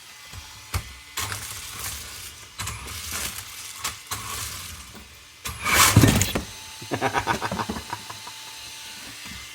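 A WLtoys 124016 RC car's brushless motor and drivetrain whirring in short bursts of throttle, the loudest burst about six seconds in. There is a knock early on, and a quick run of rattling clicks follows the big burst.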